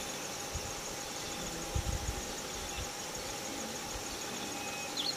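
Insects chirring steadily in the grass, a fast fine pulsing high in pitch. A few low thumps come about two seconds in, and short bird chirps near the end.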